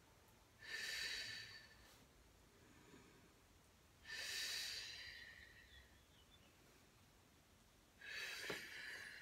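A woman breathing deeply and audibly while holding a kneeling yoga backbend: three long breaths about four seconds apart, with a soft tap during the third.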